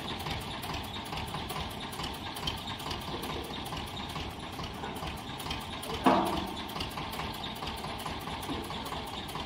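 An engine idling steadily, with a brief shout from a man about six seconds in.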